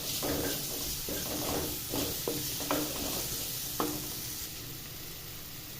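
Cut brinjal frying in oil in a kadai over high flame, sizzling with a steady hiss, while a spatula stirs and scrapes against the pan in repeated strokes that stop about four seconds in.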